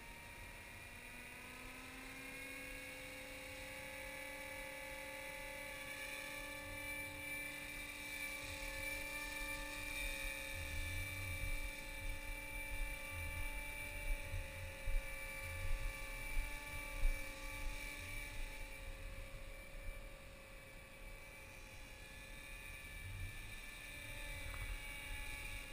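Align T-Rex 250 electric RC helicopter, in a Hughes 500E scale body, spooling up and flying: a whine from the brushless motor and rotor that rises in pitch over the first couple of seconds, then holds steady. Low bumps and buffeting come in through the middle.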